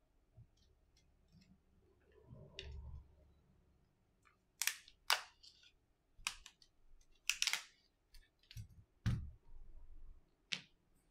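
Irregular sharp clicks and taps from handling a Samsung Galaxy A70's frame and display as they are fitted together, with a few dull knocks.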